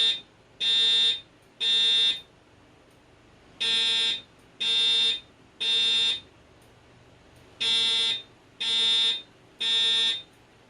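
Fire alarm voice-evacuation speaker sounding the temporal-3 evacuation tone between spoken messages: three buzzy half-second beeps, a pause, then the pattern repeats, three groups in all.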